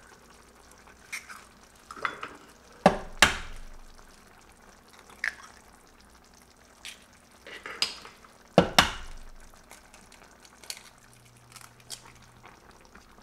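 Eggs tapped against the rim of a stainless steel pan and cracked open: two pairs of sharp knocks, about three seconds in and again near nine seconds, with smaller taps between. Underneath, the tomato sauce with green beans simmers quietly.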